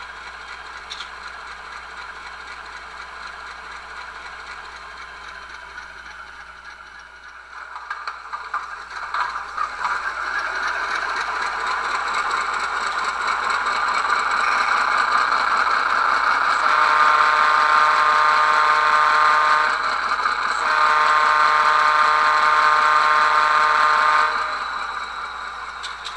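QSI sound decoder in an HO-scale model diesel locomotive playing ALCO 244 prime mover sounds through its small speaker. The engine sound builds up from about eight seconds in, and two long horn blasts sound in the second half.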